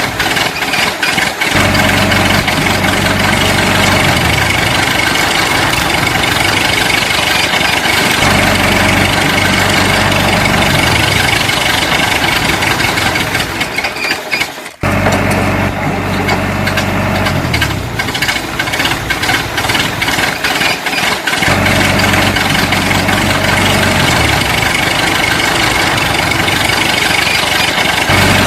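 An engine sound of heavy machinery running, its pitch falling and rising several times with steady higher tones above. It breaks off sharply about halfway through and the same stretch seems to start again, as a looped sound effect would.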